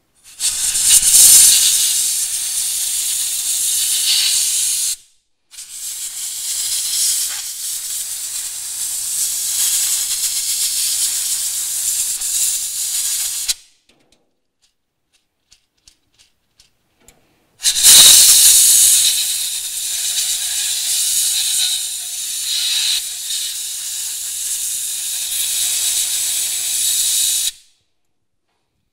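Compressed-air blow gun blasting diesel cleaner out of a cart wheel's bearing: three long hissing blasts, about five, eight and ten seconds long, each loudest at its start, with a brief break after the first and a pause of about four seconds before the last.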